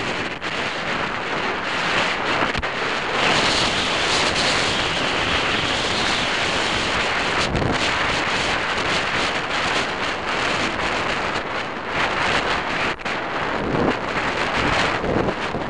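Wind buffeting the microphone of a bicycle-mounted camera coming down a steep hill, a steady rushing noise.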